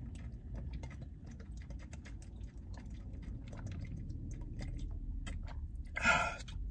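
Gulping water from a thin plastic bottle, the bottle crackling with many small clicks as it flexes under the grip. About six seconds in, a short loud breath out as the bottle comes down.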